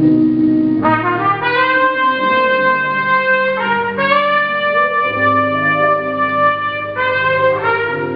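A brass horn playing a melody in long held notes, with the note changing a few times, over a recorded backing song played loud.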